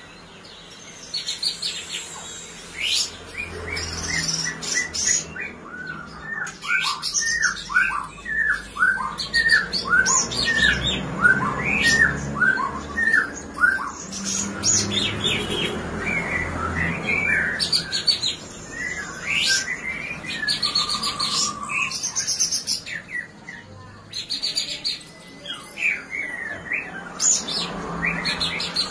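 A caged songbird singing a varied song of high trills and whistles. From about six seconds in it gives a long run of quick downslurred notes, about two a second.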